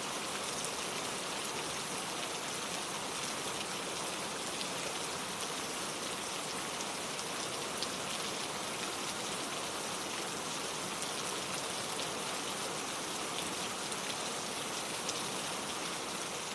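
Steady rain falling, a dense even hiss of drops pattering on leaves and surfaces, with scattered individual drop ticks.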